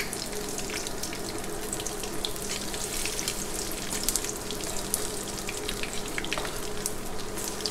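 Beer-battered fish pieces sizzling in very hot oil in a frying pan, a steady hiss full of small pops and crackles. The steady hum of a stove exhaust fan runs underneath.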